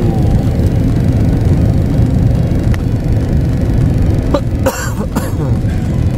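Airbus A350-900 cabin noise: a steady low rumble, with two short noisy bursts about four and a half seconds in.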